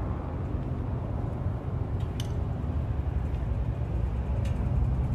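Custom Harley-Davidson V-Rod's V-twin engine idling with a low, uneven beat, with two faint ticks about two and four and a half seconds in.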